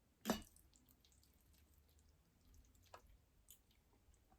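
Eating sounds close to the microphone: one short wet mouth sound about a third of a second in, then a few faint clicks, with near silence between.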